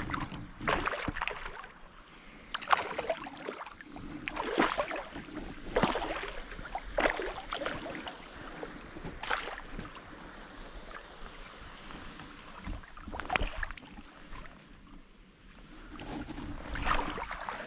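Water splashing in irregular bursts every second or two: a hooked brook trout thrashing at the surface as it is played in on a tenkara line.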